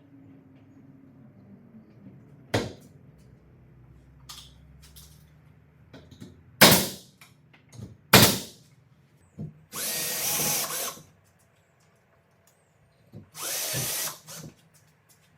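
Power drill running in two bursts of about a second each, typical of driving screws into wood, after three sharp knocks.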